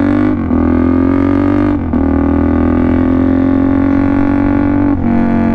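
Straight-piped Suzuki DR-Z400SM single-cylinder four-stroke engine under way, a loud buzzing drone whose pitch creeps up and drops back at three short breaks, about half a second, two seconds and five seconds in, as gears are shifted up. It is running with no back pressure from the exhaust.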